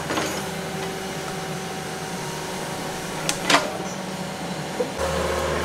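Wheeled hydraulic excavator's engine running steadily as it works its boom and bucket to dig, with a couple of sharp knocks about three and a half seconds in.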